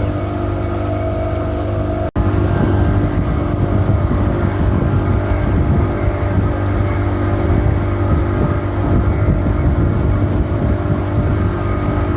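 Motorboat engine running steadily, a constant drone, with a brief gap about two seconds in.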